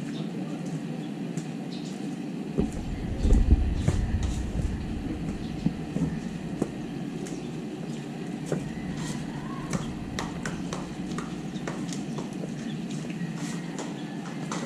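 Ambient sound of a narrow city alley: a steady background hum with scattered small clicks and knocks. About two and a half seconds in, a deep rumble starts suddenly and swells for a second or two before settling.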